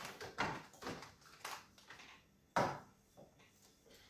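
Bottles and jars being handled on a refrigerator's door shelves: a few soft knocks and rustles, with one sharper knock about two and a half seconds in.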